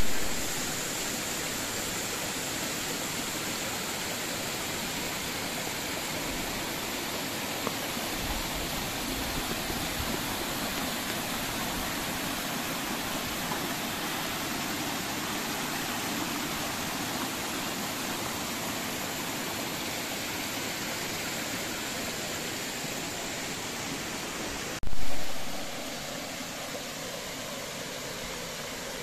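Water cascading over rock ledges and a small stone weir into a shallow stream, a steady rushing and splashing. A short loud burst cuts in once, near the end.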